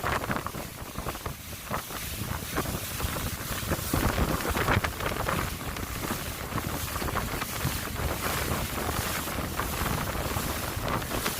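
Wind buffeting the microphone aboard a moving boat, with water rushing past; the noise swells and dips unevenly.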